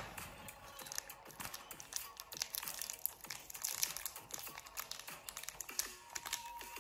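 Small candy wrapper crinkling and crackling as fingers pick it open to unwrap a durian soft candy, a quick irregular run of crackles.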